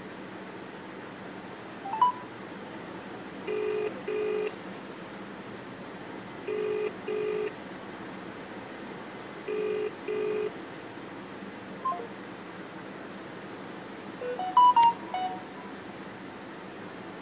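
Ringback tone of an outgoing call heard through a smartphone's loudspeaker: three double rings, low pulsed tones about three seconds apart. A short blip comes before the rings, and a quick run of beeps near the end as the unanswered call drops.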